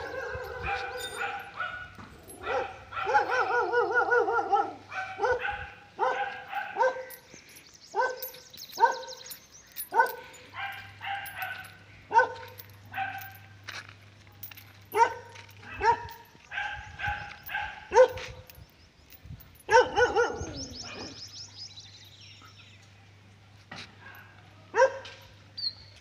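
A dog barking over and over, short barks about once a second, with longer wavering yelping calls a few seconds in and again about twenty seconds in. The barking fades out in the last few seconds.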